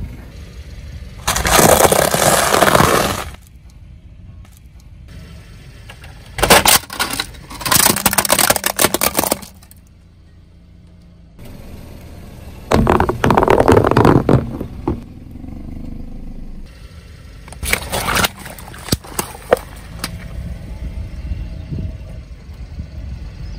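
A car tyre rolling over and crushing rows of small objects on asphalt: squishy mesh stress balls, then small balls, then water balloons. It happens in four separate passes, each a loud burst of about two seconds full of sharp cracks and pops, with a quieter low rumble between them.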